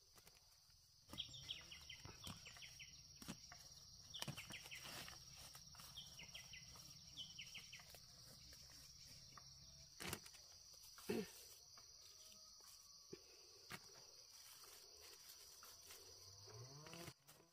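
Quiet countryside ambience: a steady high-pitched insect drone, with a bird calling in three quick runs of short falling notes in the first half and a few scattered clicks and knocks. It starts abruptly about a second in and cuts off just before the end.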